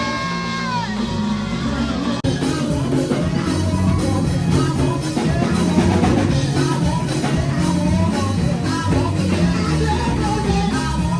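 Rock-style music with singing, drums and guitar. It cuts abruptly to another section about two seconds in, where a steady drum beat carries on under the singing.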